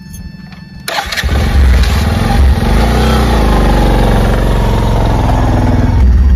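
An engine starts about a second in, then runs steadily and loudly.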